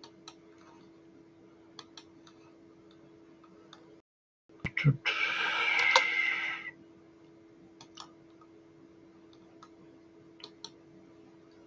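Scattered computer mouse clicks and keystrokes over a faint steady hum. About five seconds in, after the sound cuts out for half a second, a louder hissing rush lasts about two seconds.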